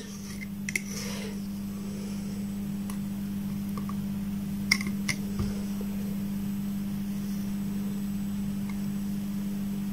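A steady low mains hum, with a few light clicks and taps as multimeter probe tips are set on the circuit board, about a second in and twice around the middle.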